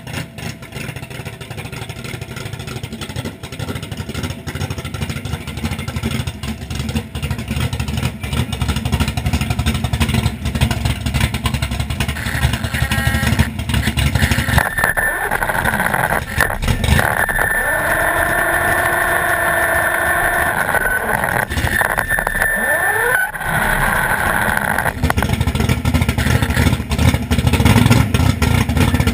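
Drag car engine running, a low rumble that grows steadily louder as the car comes up to the line. Through the middle stretch a high steady whine sounds over it, with a dip and short rising pitch sweeps near its end.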